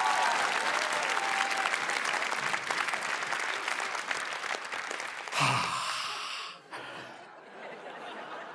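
Studio audience applauding, the clapping thinning out over several seconds. A short loud burst comes about five seconds in, then the applause drops off to a few scattered claps.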